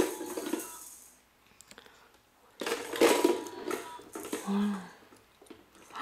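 Gumball machine clattering twice, at the start and about two and a half seconds in. Each metallic rattle dies away over about a second.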